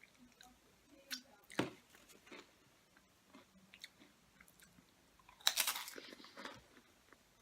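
Someone chewing tortilla chips with cheese dip, with a sharp crunch about a second and a half in and a louder crackly burst of crunching around five and a half seconds in.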